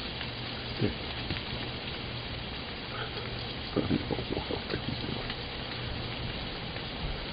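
Steady crackling and pattering of ice-coated trees and snow melting and dripping after an ice storm. A few brief low sounds come about four seconds in.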